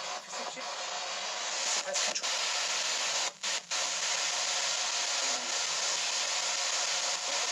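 S-Box ghost box playing a steady rush of radio static. It cuts out briefly a few times in the first half.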